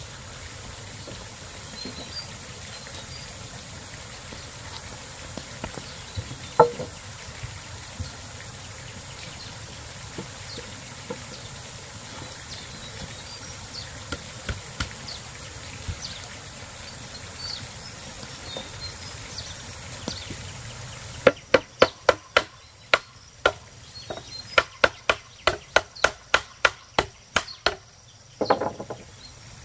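A steady quiet background for about twenty seconds, then a quick run of sharp knocks, about three to four a second in short bursts, for most of the last eight seconds.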